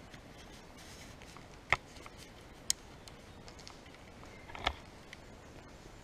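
Footsteps on a floor strewn with plaster rubble: quiet room tone broken by three sharp clicks and crunches about a second or two apart, the last one longer and heavier.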